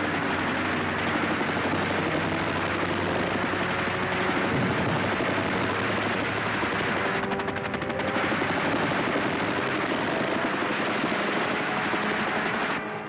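Aerial dogfight: continuous rapid machine-gun fire from fighter planes over the steady drone of their engines, with a sharper rattling burst about seven seconds in.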